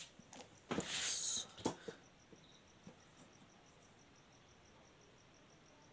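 A short rustle and a click about a second in. After that, a faint cricket chirps steadily, with high, even pulses about four times a second.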